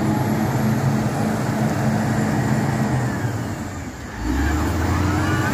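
LiuGong 4180D motor grader's diesel engine running while the machine is stuck in murum soil. About four seconds in, the sound dips briefly and comes back with a deeper, steadier note.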